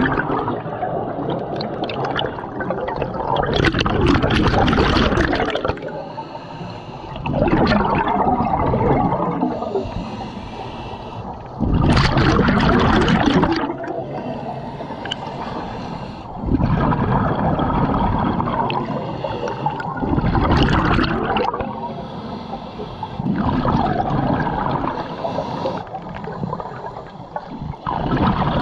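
Scuba diver's exhaled bubbles gurgling out of the regulator, a loud burst every four seconds or so, with quieter hiss between breaths.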